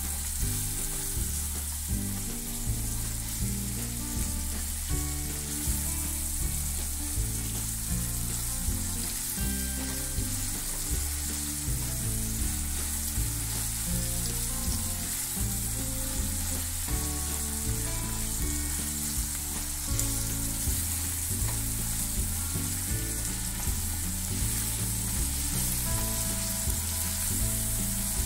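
Chopped onion, green chillies and curry leaves sizzling steadily in hot oil in a nonstick pan, stirred now and then with a silicone spatula, as the onion is sautéed until soft. Background music plays underneath.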